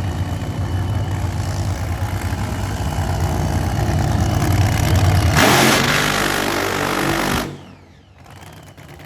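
Funny car engine running and building in level. About five seconds in it breaks into a very loud rushing roar that cuts off abruptly about two seconds later.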